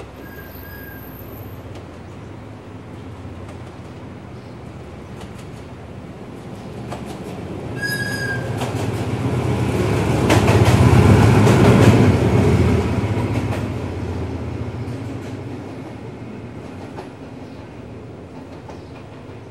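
Hitachi 8FA-36C diesel-electric locomotive and its train passing: the engine drone and wheel noise build to a peak about ten to twelve seconds in, with wheels clicking over rail joints, then fade away.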